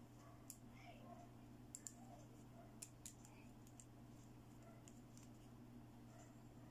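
Faint light clicks of small plastic toy pieces being handled, pink toy eyeglasses from a play doctor set, with about five clicks in the first half over a low steady hum.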